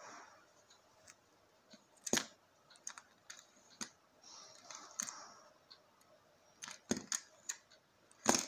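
A plastic remote key fob on a keyring being handled and set down on a stone worktop: a string of sharp clicks and knocks with light jingles of the keys. The loudest knock comes near the end.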